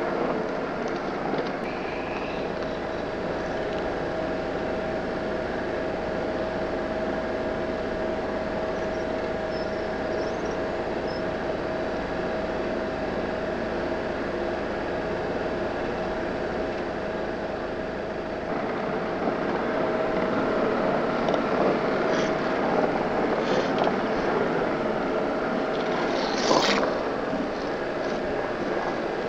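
Land Rover engine running steadily in first gear on a steep downhill track, heard from inside the vehicle. It grows louder about two-thirds of the way through, with a few knocks and rattles near the end.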